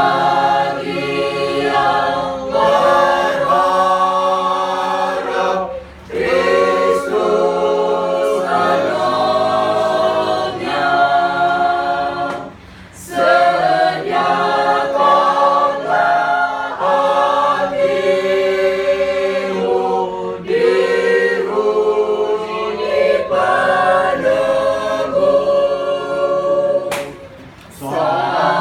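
Mixed church choir singing a hymn a cappella in several voice parts, in phrases broken by short breaths about every six seconds.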